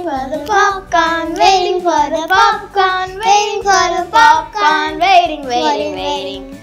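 Children singing a song, with wavering, drawn-out sung notes.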